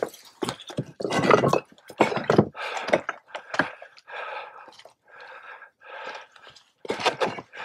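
Footsteps crunching and scraping on loose rocks, with hard, tired breathing in the quieter stretch in the middle.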